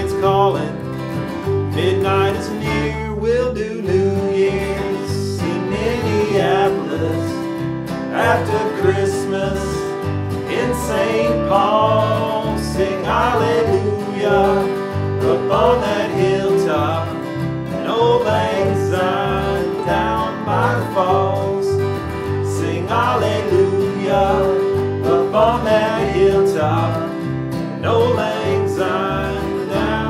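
Acoustic string band playing an instrumental country-style holiday tune: guitar, with a lead melody that slides in pitch over a held note and a walking bass line.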